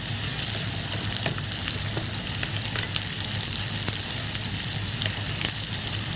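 Sliced onions frying in hot oil in a wok, a steady sizzle with many small crackles, stirred with a spatula. A low steady hum lies underneath.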